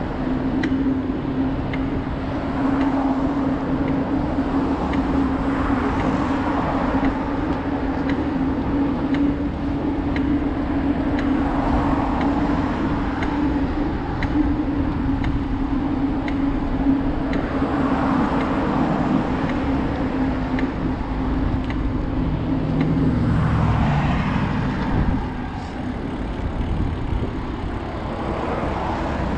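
Road traffic passing on the roadway beside a bike path, with cars swelling past every few seconds over a steady rumble of wind and riding noise on the camera's microphone. A steady low hum runs underneath and stops about 25 seconds in.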